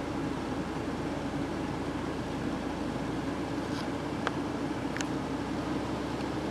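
Steady low mechanical hum, like an engine running, with two brief high-pitched squeaks about four and five seconds in.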